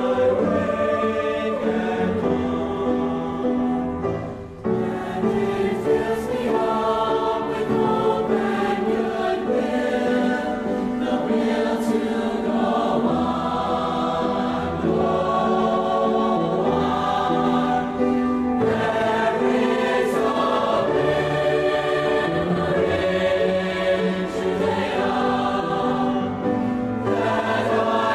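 A young woman singing a slow melodic song, joined by a choir of voices, with a short break between phrases about four and a half seconds in.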